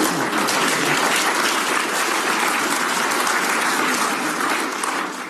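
Audience applauding, a dense steady clatter of many hands that eases off near the end.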